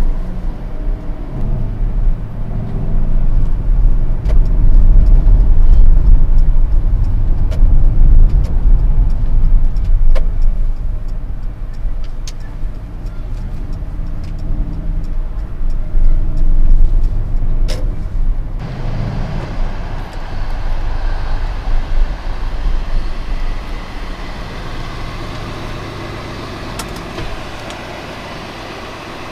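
Mercedes-AMG GLE 63 S's twin-turbo V8 running hard on the move, a deep, loud engine and exhaust note that swells and falls over the first eighteen seconds or so. After that it settles to a quieter, steadier cruise.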